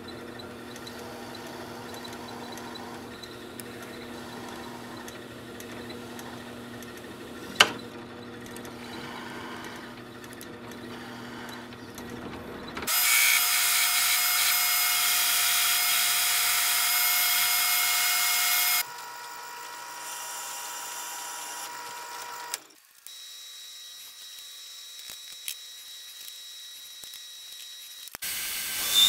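A run of shop power tools. A drill press runs and bores through knife handle pieces, with a sharp click about a third of the way in. A belt grinder then grinds much louder for about six seconds. After that come quieter machine sounds, the drill press drilling again, and the grinder starting up right at the end.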